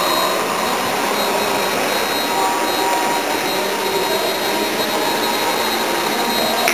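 Small electric indoor model airplane flying: a steady whine from its motor and propeller.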